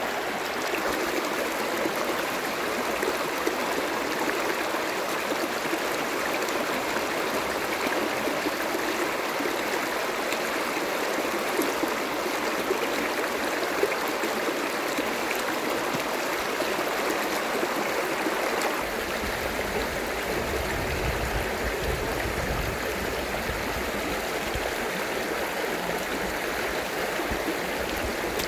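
Shallow, fast-flowing rocky stream rushing and gurgling over stones, a steady even rush of water. About two-thirds of the way through the sound shifts and a low rumble joins it.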